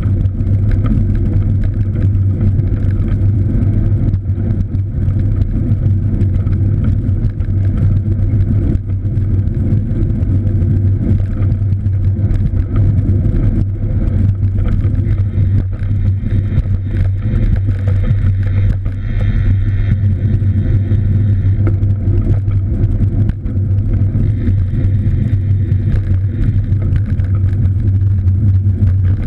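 Steady low rumble of wind and road noise from a moving cross bike.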